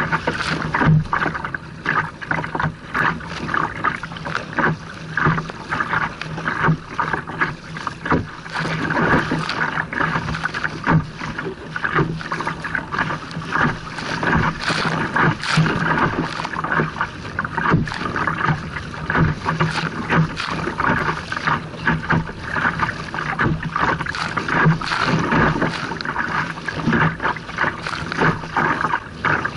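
Choppy waves slapping and splashing against the bow of a kayak under way, in an irregular, unbroken run of splashes.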